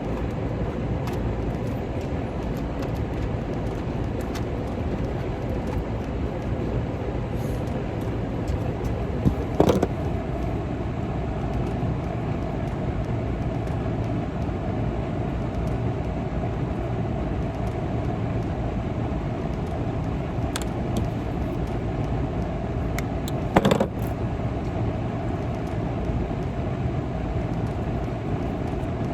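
Steady mechanical running noise with a faint constant hum, broken by two brief knocks, one about ten seconds in and one near the end.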